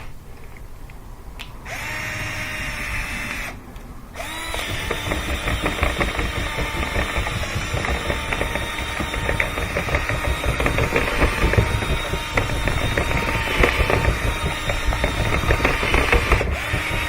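Power drill spinning Lint Eater rotary cleaning rods inside a dryer exhaust vent duct to loosen and pull out lint. It gives a short run of about two seconds and stops briefly, then runs steadily with the rods clattering inside the duct.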